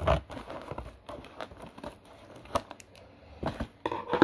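Scissors cutting packing tape on a cardboard mailing box, with irregular crinkling and tearing as the tape and box are handled, loudest at the start and near the end.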